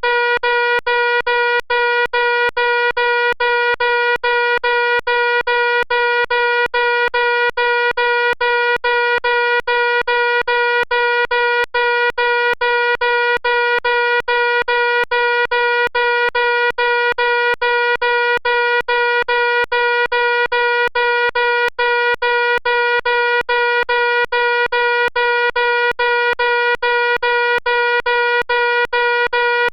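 Fire alarm sounding a loud, harsh, steady electronic tone, broken by very short dropouts two or three times a second.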